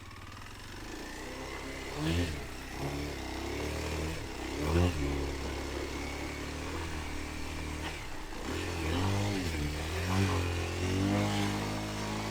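Kawasaki KLX 230's single-cylinder four-stroke engine running at low speed, revved up briefly four times: about two seconds in, near five seconds, and twice near the end.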